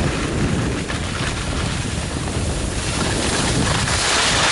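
Wind buffeting the camera microphone of a skier gliding downhill, mixed with the steady hiss of skis sliding over snow.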